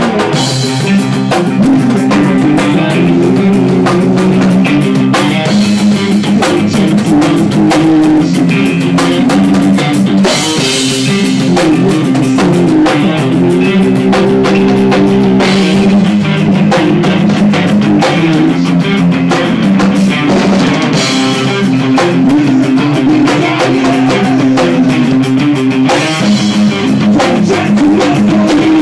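Hardcore band playing loud: electric guitar over a drum kit.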